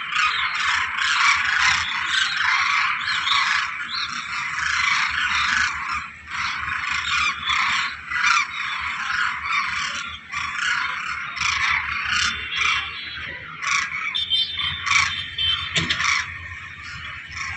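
A dense chorus of many animals calling at once: a continuous rasping, chattering mass of overlapping calls, thick with short clicking notes.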